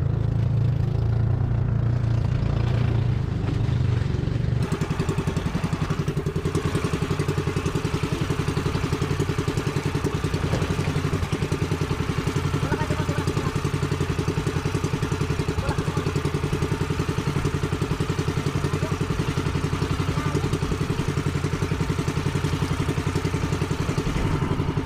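Small engine of a motorized outrigger boat running steadily with a fast, even putter. About four and a half seconds in, the sound changes to a more distinctly pulsing beat.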